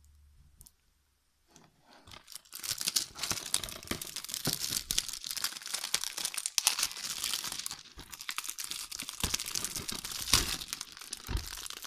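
Plastic shrink-wrap film being torn and peeled off a DVD case by hand: dense crinkling and crackling with many sharp crackles, starting about two seconds in.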